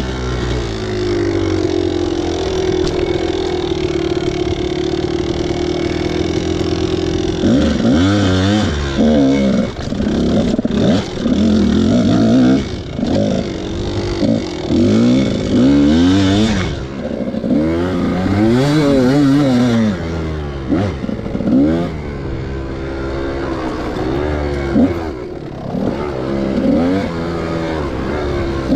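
Kawasaki dirt bike engine idling steadily, then from about seven seconds in revving up and down over and over as the bike pulls away and rides slowly along the dirt track.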